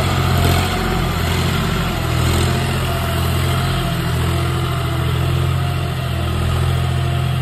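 A John Deere 5055E tractor's diesel engine running steadily as the tractor drives across the field, its low note holding even throughout.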